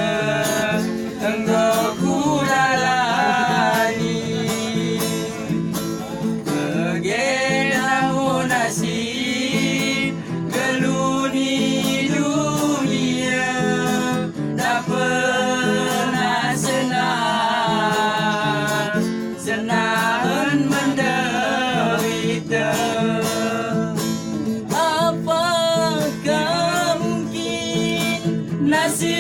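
A child singing an ornamented melody with wavering, bending notes over a plucked-string accompaniment that sounds like guitar.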